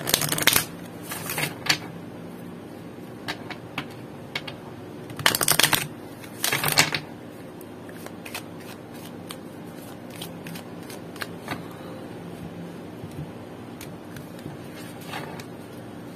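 A deck of oracle cards being shuffled by hand. Riffle shuffles give loud rippling bursts at the start and again about five to seven seconds in, with quieter shuffling and soft scattered card taps between and after.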